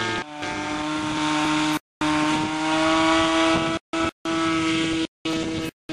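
Radio-controlled model airplane engine running at high, steady speed, its pitch rising slightly in the middle, with the sound cutting out briefly several times.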